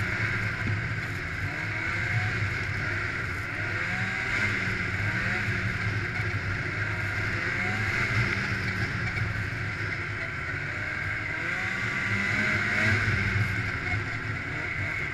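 Snowmobile running steadily at trail speed, the engine's pitch rising and falling a little with the throttle a couple of times.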